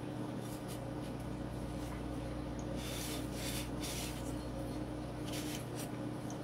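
Cloth rag rubbing over a Glock 19X pistol slide, wiping cleaning solvent off. A few soft scrubbing strokes come about three to four seconds in and again near five seconds, over a steady low hum.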